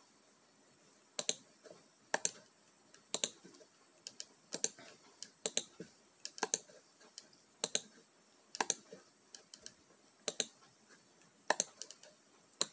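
Computer keyboard keys clicking in short groups of two or three clicks, roughly once a second, with brief pauses between them.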